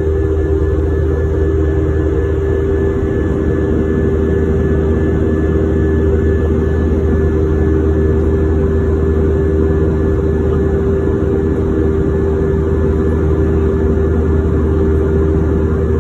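Jet airliner's turbofan engines heard inside the cabin in flight: a steady drone with a low rumble, a constant hum and a faint high whine.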